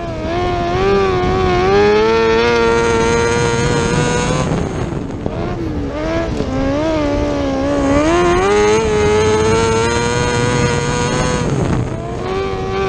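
600cc micro sprint car's motorcycle engine at racing speed, heard from the cockpit: its pitch climbs as it winds up down a straight, falls away about four seconds in as the driver eases off for a turn, then winds up again and falls away near the end.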